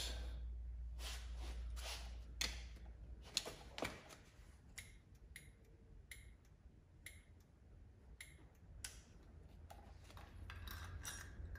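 Turn-signal flasher on a 1979 Honda XL500 ticking steadily, a little under two clicks a second, as the reassembled blinker flashes: the sign that the blinker circuit works. A few louder knocks from handling the parts come first.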